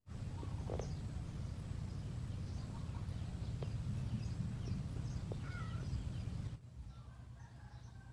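Outdoor ambience: a low rumble that drops away about six and a half seconds in, with faint, scattered bird chirps and calls over it.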